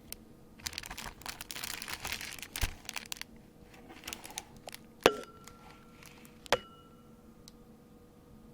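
Packaging being handled: crinkling for about two seconds, then two sharp clicks about a second and a half apart, each with a short ringing tone, like hard plastic parts set down or snapped.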